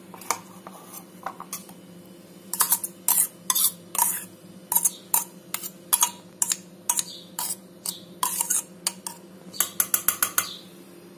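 A glass bowl and utensils clinking and scraping against a steel mixer-grinder jar as soaked poha is scraped into it. The sharp clinks begin about two seconds in and come quickly near the end, over a low steady hum.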